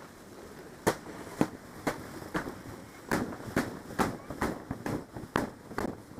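Footsteps crunching through snow, about two steps a second, with a short pause partway through.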